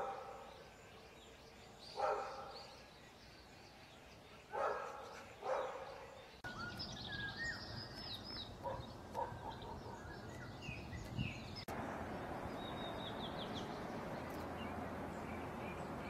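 Faint outdoor sound: four short animal calls in the first six seconds, then small birds chirping with quick high notes over a steady hiss of outdoor noise.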